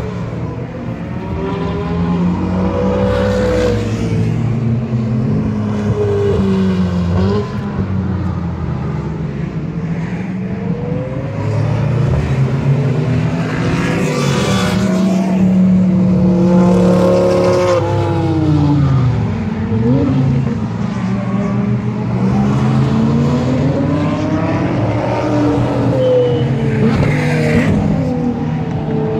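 Several sports cars lapping a race circuit, one after another, their engines revving up through the gears and then dropping in pitch as they pass and fade.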